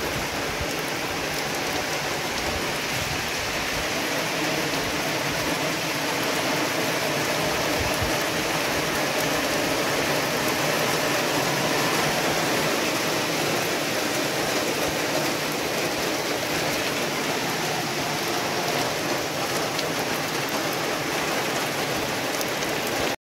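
Heavy rain pouring down steadily onto a paved road and roadside vegetation, a dense continuous hiss; it cuts off suddenly at the very end.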